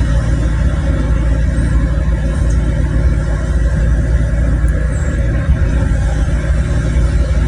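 Heavy construction machine's engine running steadily, a low, even rumble.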